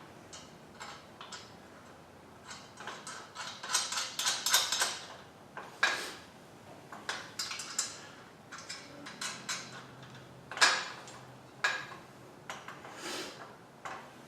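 Metal parts of a motorcycle lift being handled and fitted: a run of light metal clinks and knocks, busiest about four to five seconds in, with a few sharper single knocks later.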